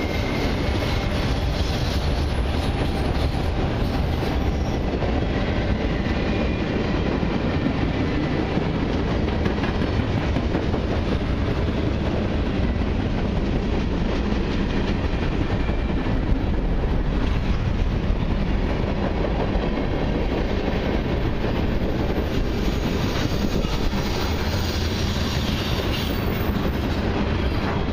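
Freight cars of a long mixed freight train rolling past at trackside: a steady rumble of steel wheels on the rails, holding level as car after car goes by.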